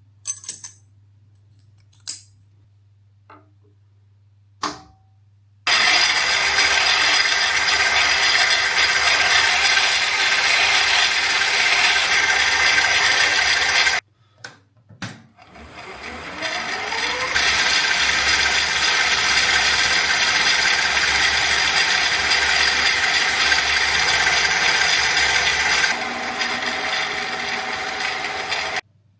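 Metal lathe turning a rotor shaft: a few clicks, then a loud steady run that cuts off suddenly midway. After more clicks it starts again with a rising whine as it spins up, and runs loud until near the end, stepping down a little shortly before it stops.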